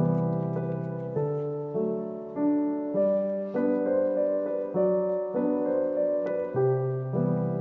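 Background instrumental music, a gentle tune whose notes change about every half second in an even pulse.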